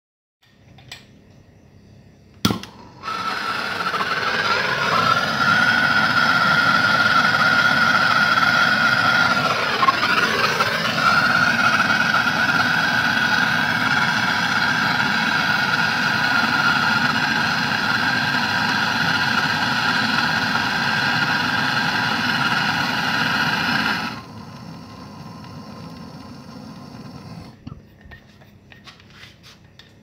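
Handheld gas blowtorch burning steadily with a loud hiss and a steady whistling tone as it heats an aluminium refrigerator cooling coil for soldering. A sharp click comes about two and a half seconds in before the flame sound starts, it wavers briefly near ten seconds, and it cuts off suddenly about six seconds before the end.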